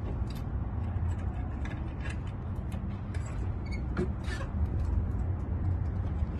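A key rattling and clicking in the lock of a 1999 Kawasaki Vulcan Nomad's hard saddlebag as the stiff, possibly never-opened latch is worked open, with a string of small irregular clicks. A steady low rumble runs underneath.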